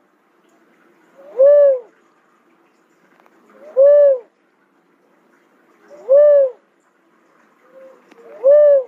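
Cuckoo-dove calling: four single coos, evenly spaced about every two and a half seconds, each a short note that rises and then falls in pitch. A faint short note comes just before the last coo.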